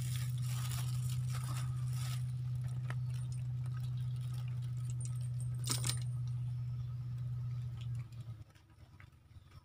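A steady low machine hum that stops about eight seconds in, under rustling and a few sharp clicks as a small fish is handled and unhooked from a fishing line, the sharpest click about six seconds in.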